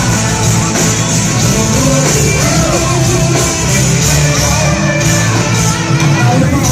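Loud live concert music through a hall's PA, with sung and shouted vocals over a steady low-end beat.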